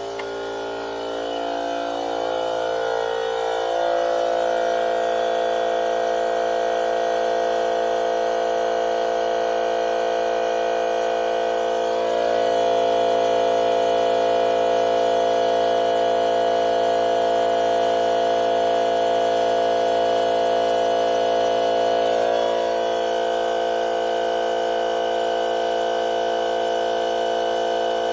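DEWALT FLEXVOLT 60V cordless 2.5-gallon air compressor running to refill its tank: a steady motor hum and whine that comes up to a steady pitch over the first few seconds, a little louder for about ten seconds in the middle.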